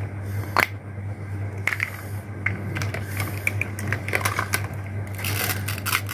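Hard plastic toy fruit and vegetable pieces being handled: scattered light clicks and taps as they knock against each other and the plastic basket, turning into a busier clatter near the end.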